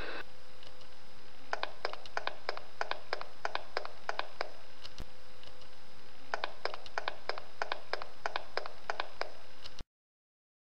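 Quick, evenly spaced light taps or clicks, about four a second, in two runs of some three seconds each over a steady background hiss. Near the end the sound cuts off to complete silence.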